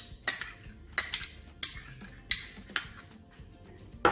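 A metal spoon scraping and knocking against a small glass bowl, about half a dozen sharp clinks with a short bright ring, as thick ketchup is scraped out.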